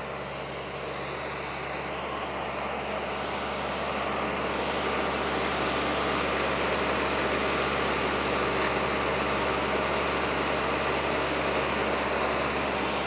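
Compact diesel tractor engine running steadily as the tractor moves up to the trailer and works its front loader, growing louder over the first few seconds.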